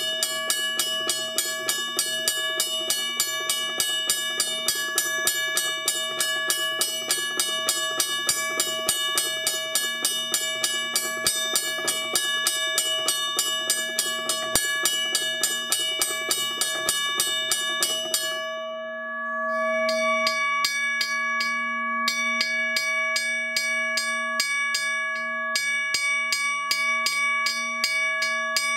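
Wabco mechanical railway crossing bell: its striker hammers the gong in a fast, even rhythm, the gong ringing on between blows. About eighteen seconds in it stops briefly, and from about twenty seconds another bell of the same kind rings with a different tone and more widely spaced strikes.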